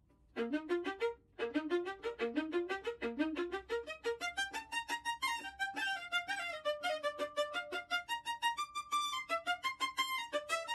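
Violin music: quick, separate notes in short rising runs, then a flowing melody.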